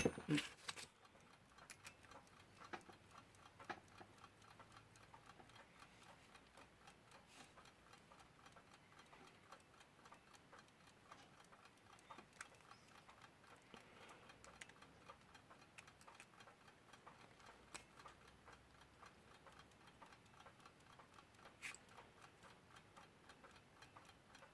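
Westclox Lark alarm clock movement ticking faintly and rapidly as its balance wheel runs, with a few slightly louder clicks standing out. The beat is a little off.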